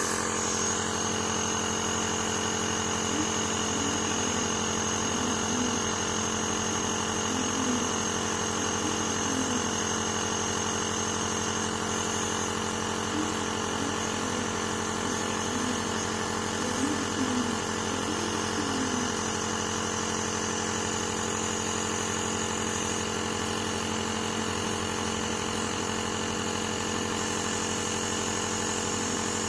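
Compressor nebulizer running with a steady motor hum.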